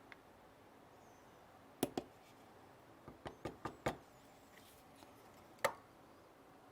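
Sharp knocks and clicks of hard objects being handled: two close together about two seconds in, a quick run of about five a second or so later, and a single louder knock near the end.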